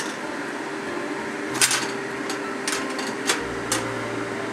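Metal wok and cooking utensils knocking and clinking on a gas stove, about five sharp clinks spread over a few seconds, over a steady background hum.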